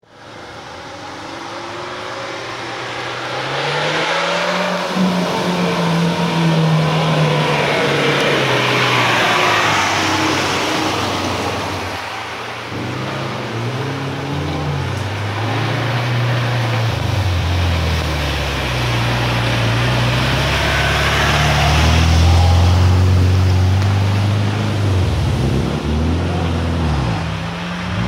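Lada Niva 4x4's engine revving up and down under load as it drives through deep, water-filled mud ruts, its pitch climbing and falling again and again.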